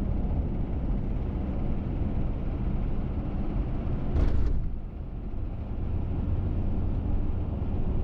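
Steady road and engine noise heard from inside a moving car's cabin: a low rumble with tyre hiss. A brief, louder whoosh comes about four seconds in.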